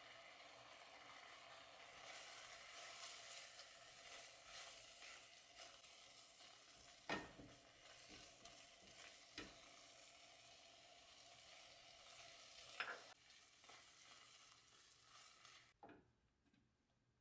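Faint sizzling of thick orange marmalade pulp cooking down in a stone-coated pot while a silicone spatula stirs and scrapes through it, the juice nearly cooked off. Three sharp clicks stand out: one about seven seconds in, one two seconds later and one three seconds after that. The sound drops away near the end.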